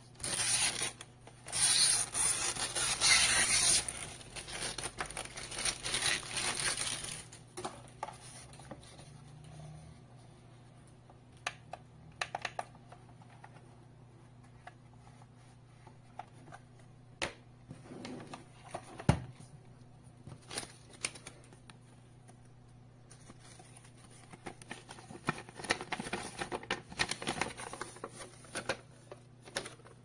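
Handling noise of a plastic power strip and its cable being turned over in the hands: rubbing and scraping, loudest in the first few seconds, then scattered light clicks and knocks. Near the end, rustling of a folded paper user manual being opened out.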